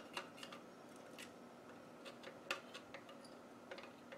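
Faint, irregular small clicks and ticks of pliers on metal as two fasteners are worked loose from an LCD monitor's video board.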